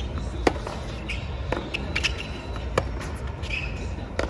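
Tennis rally on a hard court: about five sharp pops of rackets striking the ball and the ball bouncing, the loudest about half a second in and near the three-second mark, with a few short squeaks between them.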